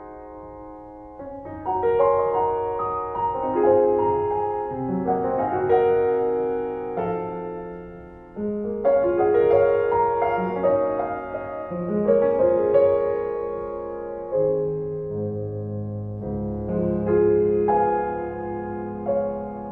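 Background piano music: a melody of single notes over chords, with deeper bass notes joining in during the second half.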